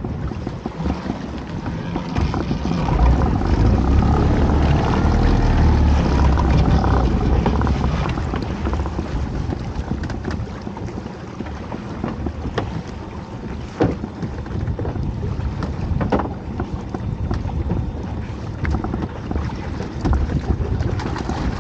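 Wind buffeting the microphone and choppy waves splashing against a small open boat, with the wind rumble strongest a few seconds in. A couple of sharp knocks come in the second half.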